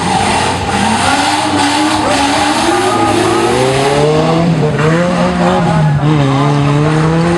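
Off-road competition 4x4's engine revving hard under load, its pitch climbing and then dropping back about three times over a steady rush of noise.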